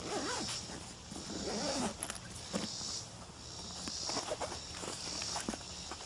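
Zipper being run around a hard-shell first aid case to open it, with handling of the case; the rasp comes in several separate pulls.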